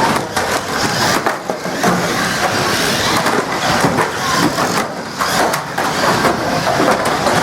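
Banger racing cars running hard, with repeated bangs and crunches of metal bodywork as they hit each other.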